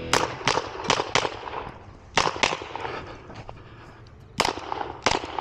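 Handgun shots fired in quick succession: four shots in just over a second, a quick pair about a second later, then a single shot near the end, each a sharp crack.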